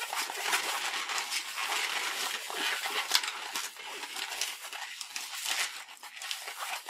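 Inflated latex modelling balloon (a 260) being twisted into small bubbles by hand: a steady rubbing rustle of latex under the fingers, with many short sharp sounds.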